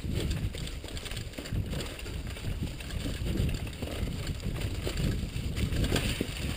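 Mountain bike riding fast over leaf-covered singletrack: a steady low rumble of wind on the microphone and tyres over leaves, with irregular small knocks and rattles from the bike over bumps.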